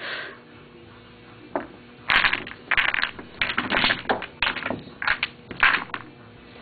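Wooden toy blocks tumbling and clacking together as a stacked tower is knocked over and pushed about, a quick irregular string of clatters starting about two seconds in and lasting a few seconds.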